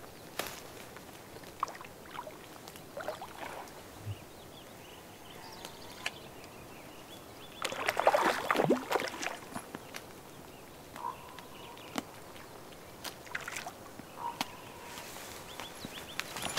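Splashing water from a hooked brook trout being played and landed at the lake's edge, with one bigger burst of splashing about halfway through and smaller splashes and ticks around it.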